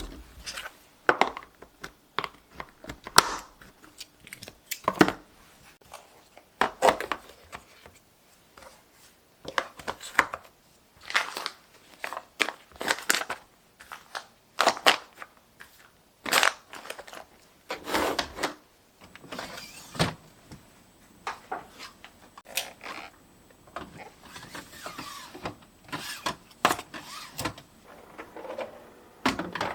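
Household objects being handled and set down by hand: irregular knocks and clicks, one every second or two, with soft crinkling and rustling in between.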